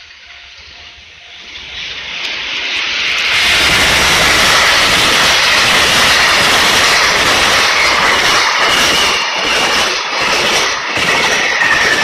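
Freight train hauled by an EF210 electric locomotive approaching and passing close by at speed. A rushing rumble swells over the first few seconds and then holds loud. In the second half the wagons' wheels clack regularly over the rail joints.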